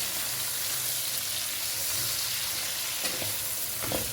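Chopped onions, carrots and green and red bell peppers sizzling as they fry in oil in a pan, with a couple of brief scrapes of stirring near the end.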